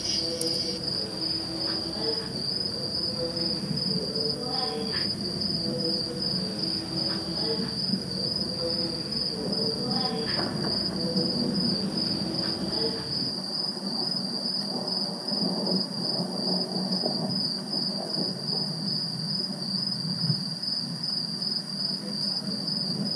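Insect chorus: a steady, high, fast-pulsing chirring of crickets, continuous without a break.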